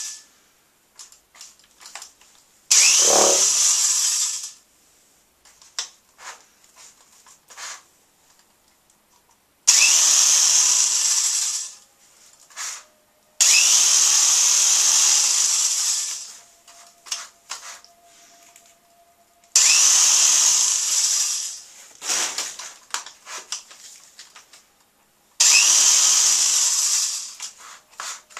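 Power drill spinning a paint brush in its chuck to fling paint, run in five bursts of about two to three seconds each. Each burst starts suddenly and fades as it stops, with small clicks and knocks between bursts.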